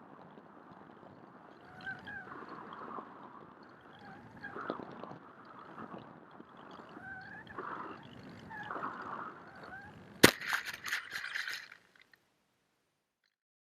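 Wind noise with a few short sliding tones, then about ten seconds in a single sharp knock followed by a second and a half of rapid rattling clicks, after which the sound cuts off.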